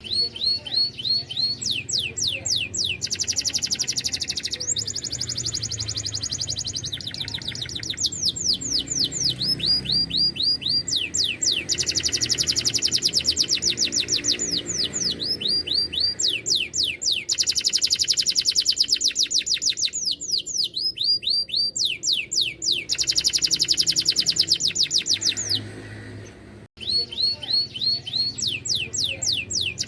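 Domestic canary in full song, singing continuous fast trills of rapidly repeated falling notes, changing from one trill to the next every second or two. The song dips and cuts out briefly near the end, then resumes.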